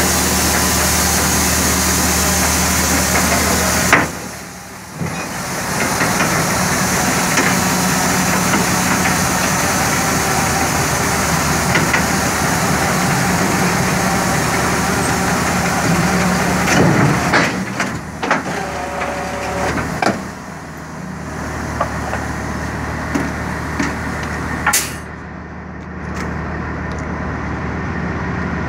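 Heavy dump truck's diesel engine idling steadily, with a high hiss over it. Several metallic knocks come around the middle, and a sharp clank near the end is followed by the hiss cutting off.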